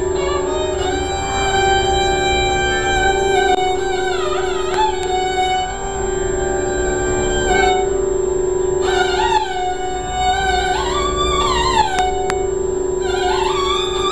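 Violin played in the Hindustani classical style, a slow unaccompanied exposition of Raag Lalit. Long bowed notes slide up and down in pitch over a steady drone note that holds throughout.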